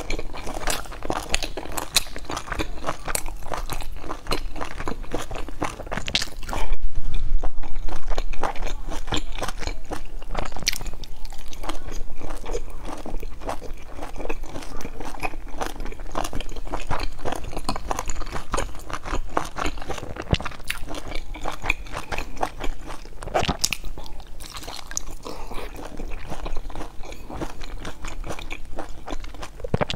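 Close-miked chewing and biting of pan-fried dumplings, with crunching from the crisp browned crust and wet mouth sounds in quick, irregular clicks. About seven seconds in, a louder muffled rumble lasts a second or so.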